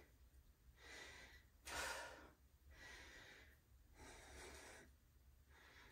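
A person breathing in and out through exercise reps, about five soft breaths, the sharpest and loudest one about two seconds in. A faint steady low hum lies underneath.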